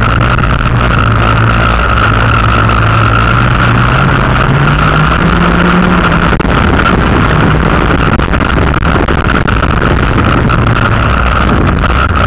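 Dirt-track race car's engine heard loudly from inside the car, running hard under load; its pitch climbs for about two seconds some four seconds in, then drops back as the car goes round the track.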